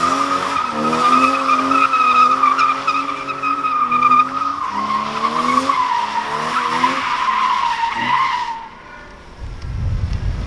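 BMW E36's M52 straight-six drifting: the tyres squeal steadily while the engine revs rise and fall underneath. The squeal slowly drops in pitch and cuts off about eight seconds in, then the engine rumbles louder near the end as the car comes back around.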